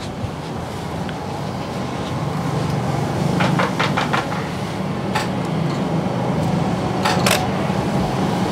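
A steady low hum with a quick run of about five sharp clicks partway through, then a few single clicks.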